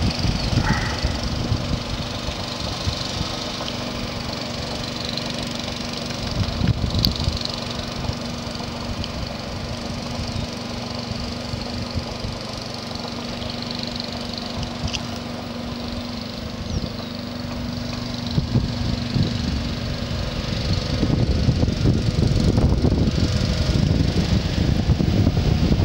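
Small engine driving a homemade paddle wheel on a pontoon boat, running steadily with a steady hum, growing louder about 21 seconds in as the boat comes closer.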